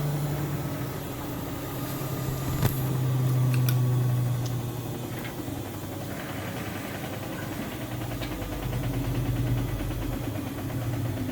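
Siemens Siwamat IQ 716 washing machine running, its motor hum swelling and fading twice, with a sharp click about two and a half seconds in and a few fainter ticks.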